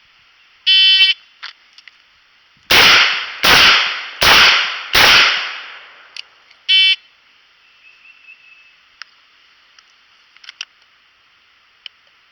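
An electronic shot timer beeps to start. A Taurus 856 .38 Special snub-nose revolver then fires four shots, about three-quarters of a second apart. A second timer beep about six seconds after the first marks the end of the par time.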